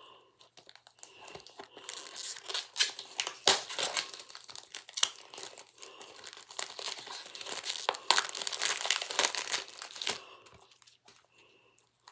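Plastic wrapping being torn and pulled off a DVD case, crinkling and crackling with sharp snaps. It is loudest from about two seconds in until near the end.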